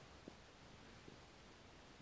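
Near silence: a faint steady hiss with two faint ticks, one a quarter second in and one about a second in.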